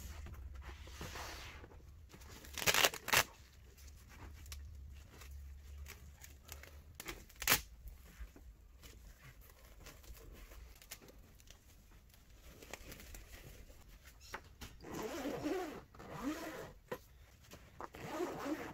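Handling of a fabric laser enclosure: the cloth rustles, and a few sharp clicks and knocks come as its metal support rods are fitted, the loudest about three seconds in and again near eight seconds. Toward the end a zip on the front panel rasps open.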